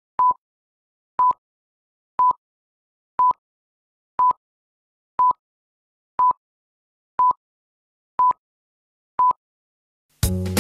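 Film-leader countdown beeps: ten short, identical high beeps, one each second, with silence between. A band with guitar and drums comes in at the very end.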